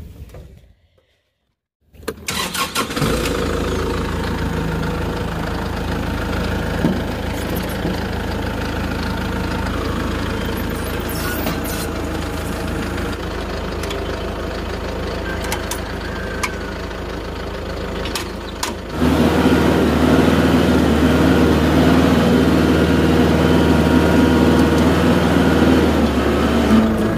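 Compact tractor's engine starting about two seconds in and then running steadily at idle. About two-thirds of the way through it steps up and runs louder.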